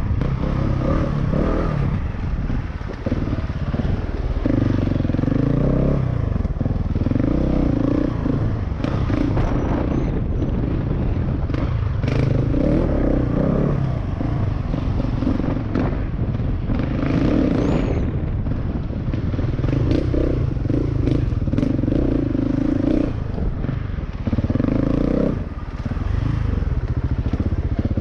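Husqvarna 701 Enduro's single-cylinder four-stroke engine, heard from the bike itself, repeatedly opening up and backing off as it is ridden over a rough dirt trail, with knocks and clatter from the bike and ground mixed in.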